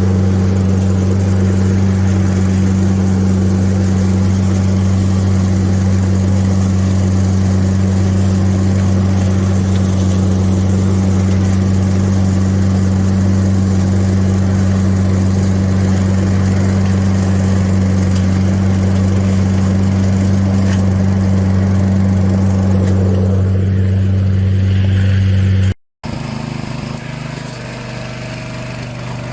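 Gas-engine pressure washer running steadily: a constant engine drone under an even hiss of spray. About 26 seconds in it cuts off abruptly to a quieter running machine with a different pitch.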